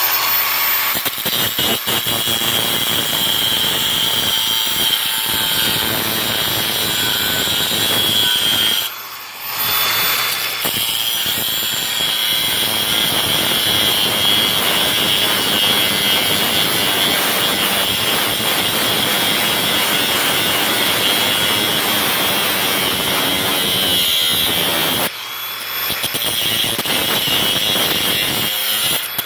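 Makita XAG03 cordless brushless angle grinder cutting through rebar, a loud grinding with a high steady whine. It breaks off for a moment about nine seconds in, cuts again, and drops to a quieter whine a few seconds before the end.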